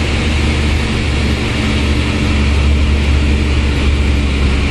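A bus engine runs steadily under way, heard from inside the cabin near the front: a loud, even low drone with road noise over it.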